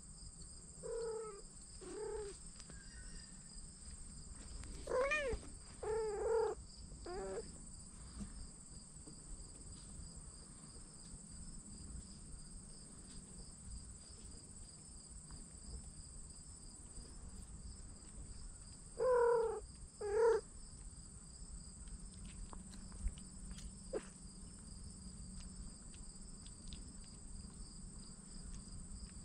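Kittens mewing: short high calls, a string of them in the first several seconds and two louder ones about two-thirds of the way through. A steady high insect chorus runs underneath.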